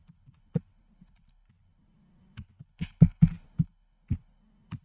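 Computer keyboard keystrokes: one lone keystroke, then after a pause a quick run of about nine keystrokes, as a password is typed.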